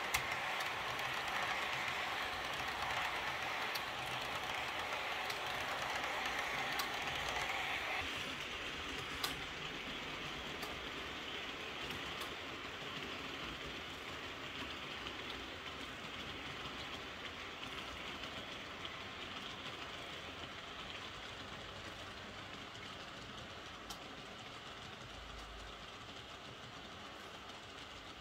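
Model railway train of passenger coaches rolling along the track: a steady rolling noise of small wheels on the rails with scattered clicks. The sound drops about eight seconds in and then fades slowly.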